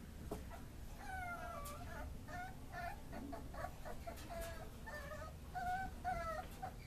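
A beagle puppy whining and whimpering: a rapid string of short, high, wavering cries, some sliding down in pitch, about two each second.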